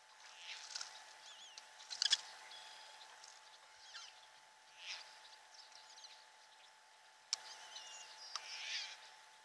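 Small birds chirping and singing in repeated short, wavering notes, with a few brief sharp knocks or splashes; the loudest comes about two seconds in.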